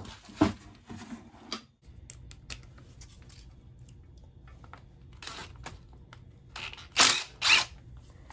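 Hands working on an ATV's wiring harness and ground wire: a few sharp clicks and knocks, then two short loud scraping rasps about half a second apart near the end.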